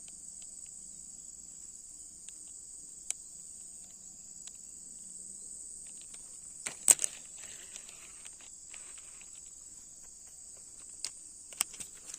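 Insects chirring steadily in a continuous high-pitched drone. A sharp knock sounds about seven seconds in, with a few fainter clicks elsewhere.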